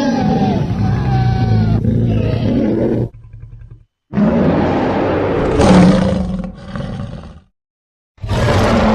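Monster roar sound effects: a string of separate rough, growling roars cut one after another with short silences between, one ending about three seconds in, a second running from about four seconds to seven and a half, and a third starting near the end.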